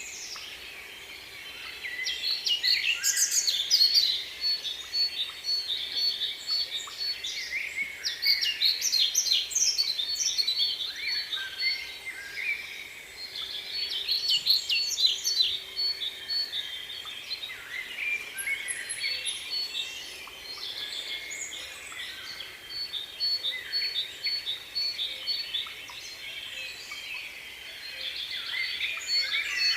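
Many small birds chirping and twittering at once, with a high single note repeated in quick even runs through much of it.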